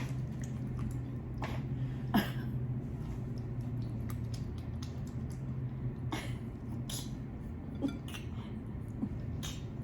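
Close-up eating sounds: scattered short smacks and clicks of chewing and handling boiled shrimp, over a low steady hum.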